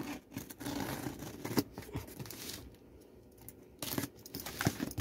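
Packing tape on a cardboard box being slit and torn open: scratchy, rasping strokes in two spells with a few sharp ticks, and a pause of about a second between them.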